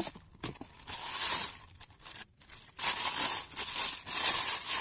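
Thin clear plastic bag crinkling and rustling as it is pulled by hand off a piston. The crinkling comes in two spells: a short one about a second in, and a longer one from about three seconds in.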